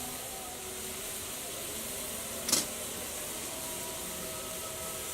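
Red-hot steel ball sizzling in cough syrup, a steady hiss, with one sharp pop about two and a half seconds in.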